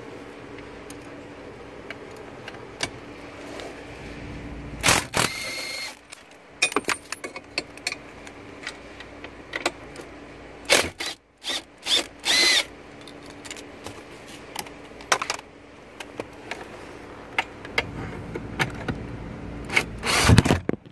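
Hand tools working on the steering column's mounting bolts: a ratchet and long socket extension clicking, knocking and clattering against the metal brackets. There are several louder metal clanks, two with a short ringing tone.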